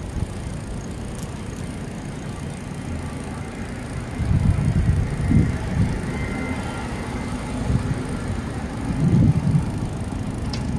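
Bicycle riding along a concrete alley: a low rolling rumble that swells about four seconds in and again near nine seconds, with a faint thin squeal around six seconds in.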